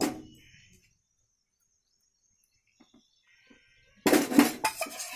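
A short knock at the very start that fades quickly, then near quiet. About four seconds in, a metal spoon scrapes and clinks against the pan as the thick besan halwa is stirred.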